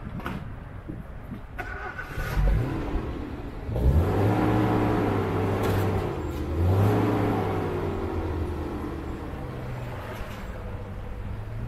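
Outboard motor revving up, once about four seconds in and again near seven seconds, then easing off as its pitch slowly falls. A few sharp knocks come in the first seconds.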